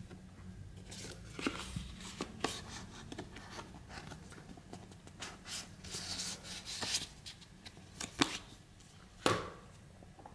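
Stiff paper cards and a cardboard box being handled: rustling and sliding of card stock, broken by irregular sharp taps, the loudest two near the end.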